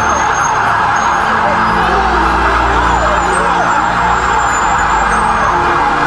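Several emergency vehicle sirens wailing at once, their rising and falling tones overlapping, over a low steady rumble.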